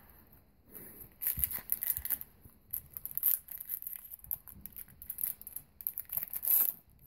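Crinkly foil wrapper of a hockey card pack being handled, crackling and rustling irregularly from about a second in.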